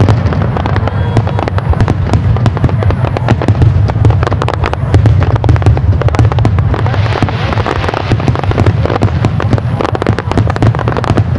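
Fireworks going off in quick succession: many sharp cracks and pops over a continuous low booming.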